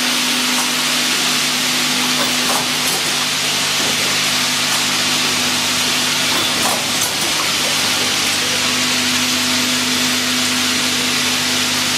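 Automatic bottle washing, filling and capping line running: a steady hiss of air over a low, even motor hum, with a few faint clicks.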